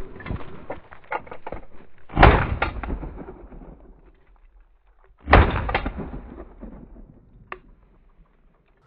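Two shotgun shots about three seconds apart, each with a fading echo, the first the loudest. Before them come quick crunching footsteps over stony, snowy ground.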